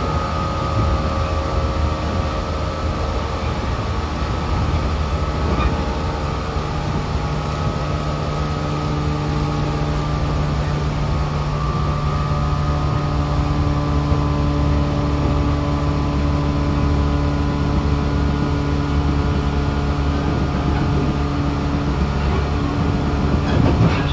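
Onboard running noise inside the motor car of a JR 415 series 500-subseries electric train (MoHa 415-507): traction motor hum with a few steady whining tones over the rumble of wheels on rail, at a steady speed. A few sharp clicks sound near the end.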